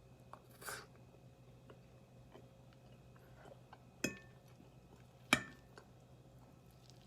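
Utensil clinking twice against a dish, about a second apart, each with a short ring.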